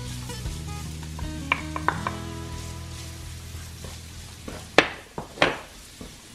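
Minced garlic, ginger and scallions sizzling softly in hot oil in a frying pan while a wooden spatula stirs and scrapes them, with two sharp knocks of the spatula about half a second apart near the end. Background music with sustained notes plays throughout.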